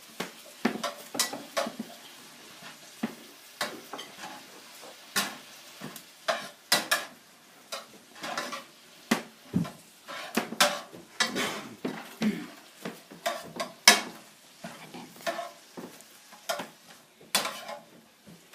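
Vegetables being stir-fried: a utensil scraping and knocking irregularly against the pan, a few times a second, over a faint sizzle.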